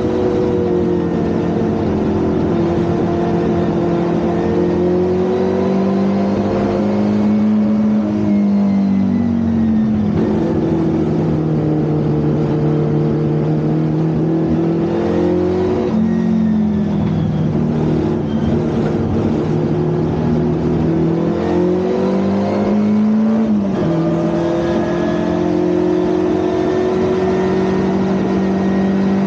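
Four-cylinder engine of a historic Ford Anglia 1200 race car running hard at a steady loudness. Its pitch climbs and falls with the revs and steps sharply a few times at gear changes.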